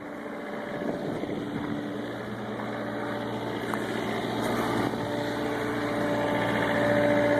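Excavator engine running steadily at idle, growing gradually louder.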